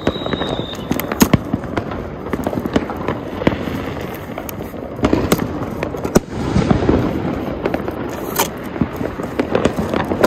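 Diwali firecrackers going off all around in irregular pops and bangs, with a high whistle that stops under a second in.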